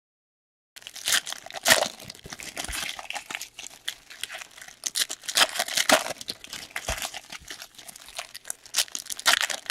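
Crinkling and tearing of plastic wrapping on a sealed trading-card box or pack, in a dense run of irregular crackles. It starts after a brief dead gap.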